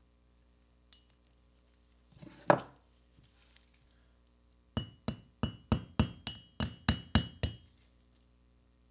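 Ball-peen hammer tapping on a die-cast metal toy part resting on a steel vise anvil, peening pins to fix the wheels on. One tap, then a run of about ten quick taps at roughly four a second, each with a short metallic ring.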